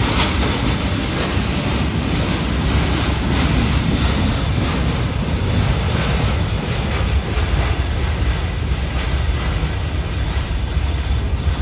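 Freight cars rolling past at close range: steel wheels running on the rails with a steady low rumble and light repeated clicks from the wheels over the track.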